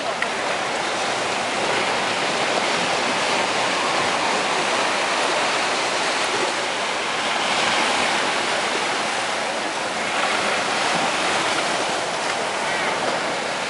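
Surf breaking and washing up a sandy beach: a steady rushing hiss.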